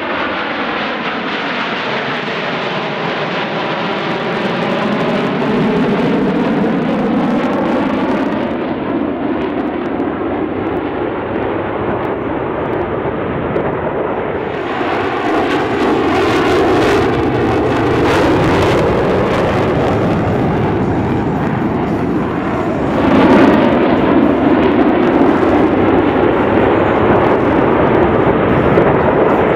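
Blue Angels F/A-18 Hornet jets flying past with a continuous loud jet roar. The roar has a sweeping, shifting tone as the aircraft pass, and swells again about halfway through and more strongly near the end.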